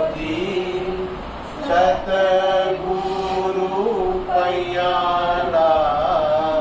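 A group of men and women chanting a devotional prayer song together, on long held notes, with a short break between lines about a second and a half in.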